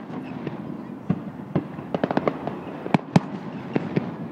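Aerial fireworks shells bursting: a string of sharp bangs at irregular intervals, with a quick run of them about two seconds in and the loudest bangs around three seconds in.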